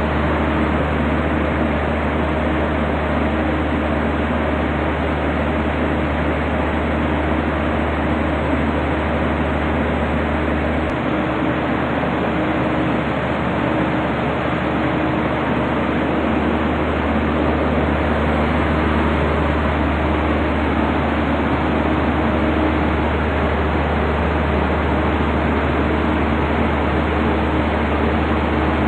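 Deutz BF6M 1013 EC six-cylinder diesel engine running at a steady speed, a loud even drone with a low hum underneath. The low hum drops back for a few seconds about a third of the way through, then comes back.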